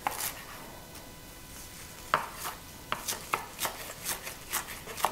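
Chef's knife chopping fresh parsley on a wooden cutting board: one chop at the start, then after a pause a run of quick chops, about two or three a second.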